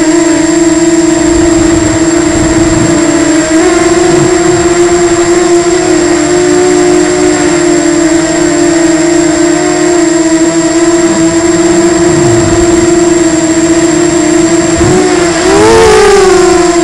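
FPV quadcopter's brushless motors and propellers whining steadily, heard up close from its onboard camera. Near the end the pitch rises and then dips as the throttle changes.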